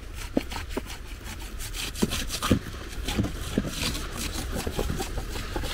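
A run of rough, uneven rasping and crunching strokes, several a second, with a few dull thuds among them.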